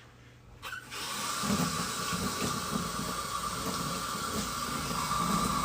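Tap water turned on about a second in and running steadily into a sink for a kitten's bath, with a faint steady whistle in the flow.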